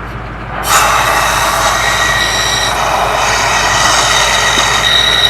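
Compressed air from a truck's air receiver blasting through the oil channels of an engine block to clear out metal swarf: a sudden loud hiss with a steady whistle starts under a second in and keeps going. A steady low hum sits underneath.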